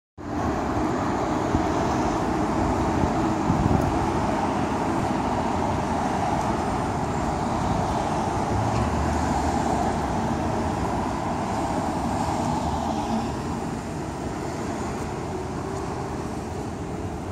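Steady city traffic noise at an intersection: the mixed hum of idling and passing cars, easing off a little near the end.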